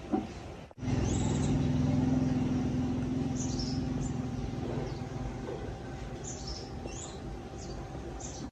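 Small motorcycle engine running steadily at idle, starting abruptly just under a second in and easing slightly later on, with birds chirping in short high calls over it.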